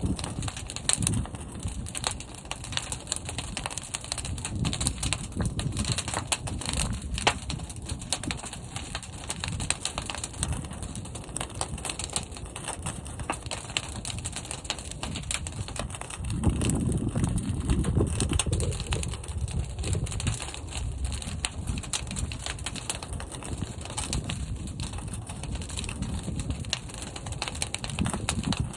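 Fire burning inside a large kiln during firing: a low, pulsing rumble with scattered crackles, growing louder for a few seconds from about sixteen seconds in.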